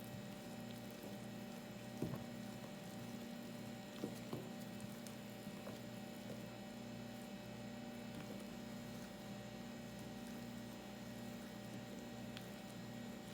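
Cake batter being beaten in a bowl, most likely by an electric mixer, with a faint steady hum that throbs in a regular pulse. There are a few sharp knocks about two and four seconds in.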